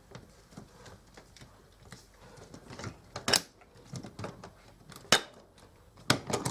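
Scattered light clicks and knocks of hand tools on the dishwasher's plastic drain-system parts, with a few sharper snaps as a hose clamp is worked loose.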